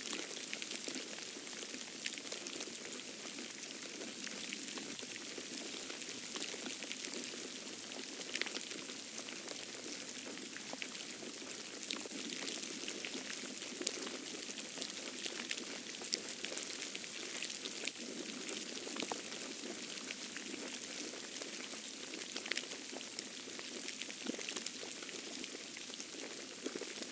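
Falling snow in a snowstorm, pattering steadily as a dense hiss made of many small irregular ticks, like light rain.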